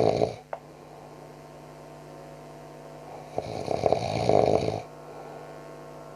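A man snoring loudly in his sleep: one snore trailing off just after the start and a second long snore about three and a half seconds in, with a steady hum between the snores.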